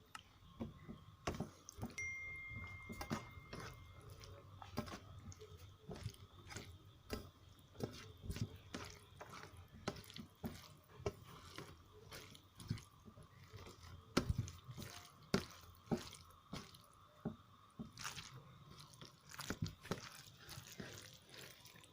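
A person chewing a mouthful of rice and chicken curry, with irregular soft wet clicks and smacks.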